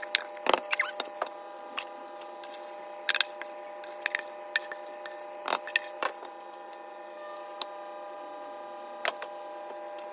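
A wooden spoon scraping cake batter from a metal mixing bowl into a baking tray, with a handful of sharp knocks of spoon against bowl and tin, over a steady hum.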